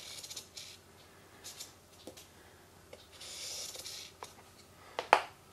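Thick felt-tip permanent marker scratching in short strokes as it is drawn around the edge of a skate footbed onto a foam insole, with the longest stroke a little past three seconds in. Small clicks between the strokes, and a sharp tap, the loudest sound, about five seconds in.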